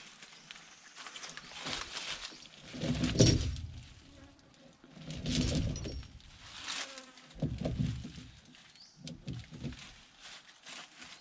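Heavy steel tyre chain rattling and clinking in repeated bursts as it is lifted and draped over a truck's rear dual tyres, with some duller thuds of chain on rubber.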